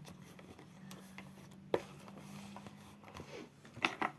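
Pencils being handled and slotted into a pencil case: a sharp click about two seconds in and a couple of quick taps near the end, over a faint steady hum.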